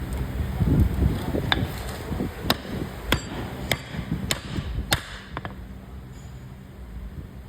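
Hammer striking metal in a run of about six sharp blows, roughly half a second to a second apart, which stop about five seconds in.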